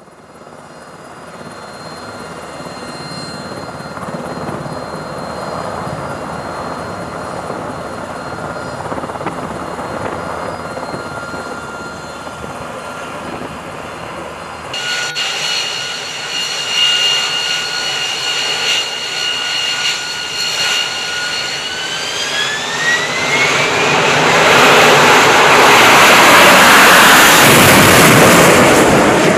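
MH-60 Seahawk helicopter's turbines and rotor running as it lifts off. About halfway in, after a cut, an AV-8B Harrier's jet engine whines steadily, the whine rises in pitch as the engine spools up to full power, and a loud jet rush fills the last few seconds as the Harrier takes off.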